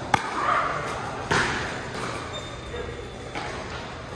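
Pickleball paddle hitting the ball with a sharp pop just after the start, echoing in a large indoor hall; another loud burst follows about a second later.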